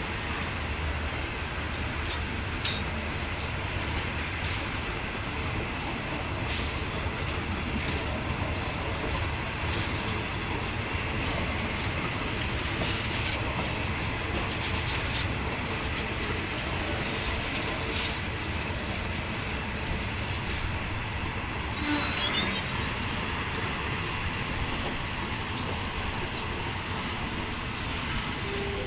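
Train on the move in a station yard: a steady rumble and hiss, with a few scattered clicks from the wheels and track.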